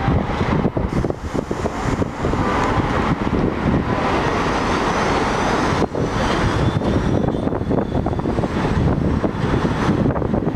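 Bombardier R62A subway train pulling out of an elevated station and accelerating away: a steady loud rumble of wheels on the steel track, with faint rising motor whines after about six seconds.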